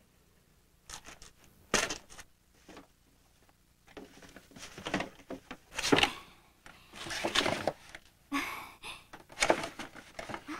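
A box being opened and rummaged through: a few light knocks, then three longer scraping rustles.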